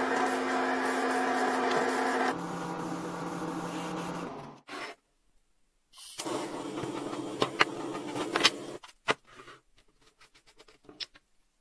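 Small electric motor of a paint sprayer running with a spray hiss while lacquer is sprayed; its pitch drops about two seconds in and it stops a little before the halfway point. A similar motor-and-hiss stretch starts again after a short gap, with several sharp clicks in it, and a few faint clicks follow near the end.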